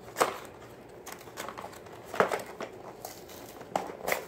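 Plastic blister packaging and its cardboard backing card crinkling and crackling as they are handled, with a few sharp crackles. The loudest comes about two seconds in, and another pair comes near the end.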